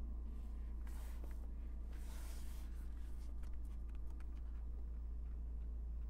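Faint scratchy rustling and a few small clicks from a hand moving over the centre-console controls, over a steady low hum.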